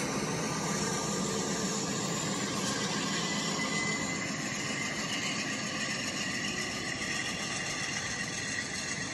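Toy LEGO train running past on plastic track: a steady whirring of its electric motor and the rattle of its wheels, easing slightly toward the end.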